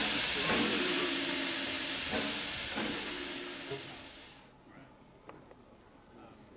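Steam hissing loudly from a USATC S160 class 2-8-0 steam locomotive, fading out over the first four and a half seconds. After that it is quiet apart from a few faint clicks.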